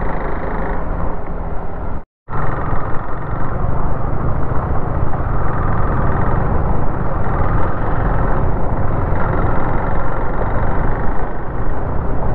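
Riding sound from a camera on a moving KTM Duke 390: wind rushing over the microphone, with the bike's single-cylinder engine running underneath at steady road speed. The sound cuts out completely for a moment about two seconds in.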